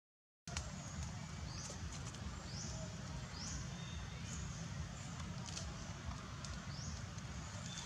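Forest background: a short, high chirp rising in pitch repeats every second or so over a steady low rumble, with a few light clicks and rustles of dry leaves. The sound drops out for half a second at the start.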